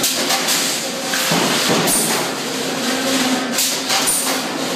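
Circle-headsaw sawmill with a shotgun-fed carriage running: a steady hum under dense clatter and hiss as the carriage moves a squared log, with several sharp knocks and two brief high squeals.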